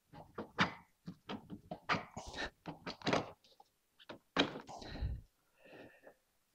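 Hand tools and metal parts knocking and clicking irregularly as a motorcycle's top triple clamp and steering head are worked on, with a heavier, deeper thunk about four and a half seconds in.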